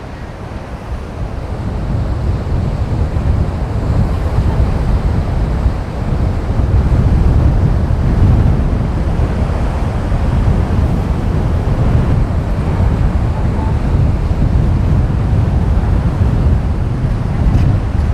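Strong wind buffeting the microphone in a heavy, uneven rumble, over the wash of rough surf breaking at an ocean inlet.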